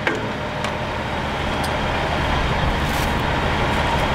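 Fire rescue truck's diesel engine idling steadily, with a few light clicks and knocks from tools being handled in an open equipment compartment.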